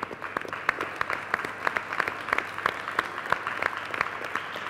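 An audience applauding: many people clapping at once, with a few nearby claps standing out sharply.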